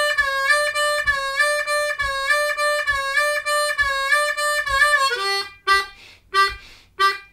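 Hohner Special 20 diatonic harmonica in C played solo. The four-hole draw note is repeated in a syncopated run with small bends up and down. About five seconds in it slides down to the two-hole draw, played as a string of short, separate notes.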